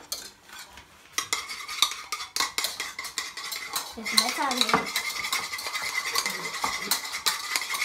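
Wire balloon whisk beating egg in a plastic bowl by hand: a quick, uneven run of light clicks and scrapes that starts about a second in.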